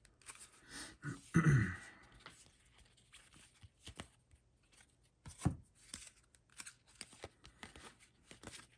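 Baseball trading cards flipped one by one through a hand-held stack, the card stock giving a run of light flicks and snaps. A brief louder sound with a falling pitch comes about a second and a half in.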